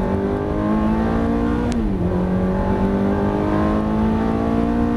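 Ferrari sports car engine heard from inside the cabin, accelerating hard: its pitch climbs, drops sharply about two seconds in at an upshift just after a short click, then climbs again as the car pulls through the next gear.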